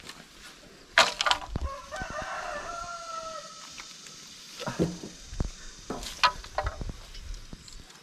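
A rooster crows once, a call of about a second and a half that sags at the end. Around it come sharp knocks and clatter from bamboo trellis poles being taken down; the loudest is a knock just before the crow.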